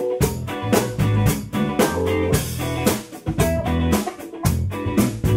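A band playing: guitar, bass and drum kit keeping a steady beat.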